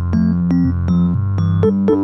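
Instrumental keyboard music with an electric-piano sound: a run of struck notes, two to three a second, over a held low bass, with no singing.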